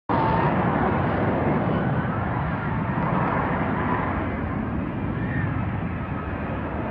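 Jet fighter engine rumbling steadily in flight, easing a little in level over the seconds.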